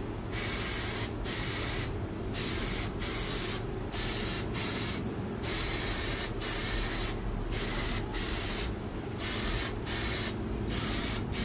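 Aerosol can of Plasti Dip rubber coating spraying in a dozen or so short bursts, each under a second, with brief pauses between: a light first dusting coat going onto a wheel rim.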